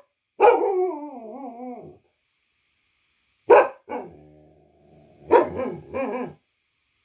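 A dog barking: the first bark draws out into a wavering, falling cry lasting about a second and a half. About three and a half seconds in come two short sharp barks and a faint low drawn-out sound, then a quick run of two or three more barks.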